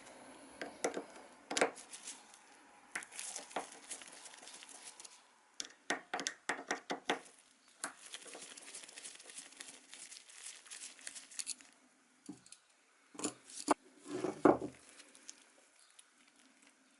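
Hands handling small parts and tools on a workbench: irregular clicks, taps and rustling, with a few louder knocks near the end.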